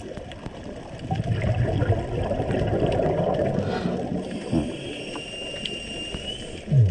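Scuba regulator breathing recorded underwater: a bubbly exhale rumble lasting about three seconds, then a quieter inhale with a thin steady whistling tone, and the next exhale bursting in right at the end.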